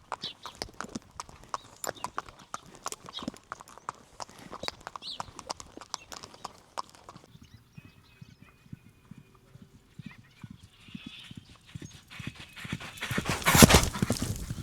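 Horse hooves clip-clopping in an uneven patter of hoof strikes, quieter after about seven seconds. A loud burst of noise comes near the end.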